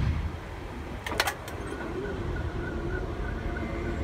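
Rumble of a coal train's last cars rolling over the crossing, fading away within the first moments, followed by a few sharp clanks about a second in. Then the railroad crossing warning bell keeps dinging in quick, even strokes.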